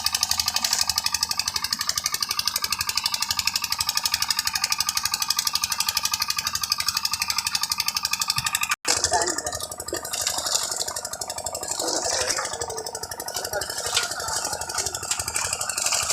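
Construction machinery running: a fast, even rattling pulse for about nine seconds, then an abrupt change to an engine with irregular clanks.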